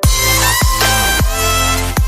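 Electronic background music with a heavy bass beat and deep falling bass sweeps about every half second.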